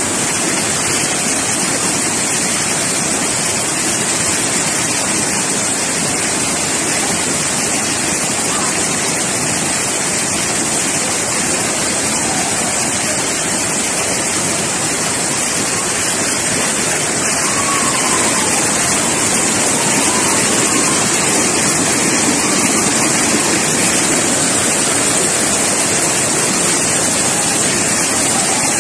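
Waterfall crashing into a rocky pool, with the stream below it rushing over boulders: a steady, unbroken roar of falling water that grows slightly louder about two-thirds of the way through.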